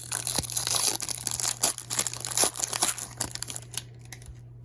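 Crinkling and tearing of a trading-card pack wrapper being ripped open by hand. The crackling stops near the end.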